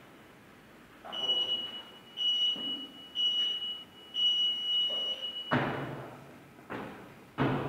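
Gym interval timer beeping a countdown: three short high beeps about a second apart, then a longer beep as the start signal. Then sharp thuds of feet landing on a wooden plyo box at the start of box jumps.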